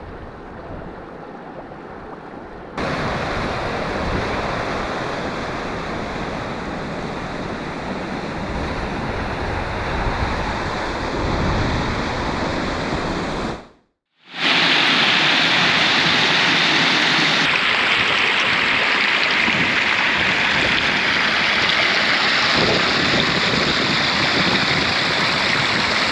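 Water sounds of carbonated mineral springs: gas bubbling up through a grey mud pool, quieter at first and then louder. After a second of silence, a shallow iron-rich spring stream rushes steadily over its rust-coloured bed.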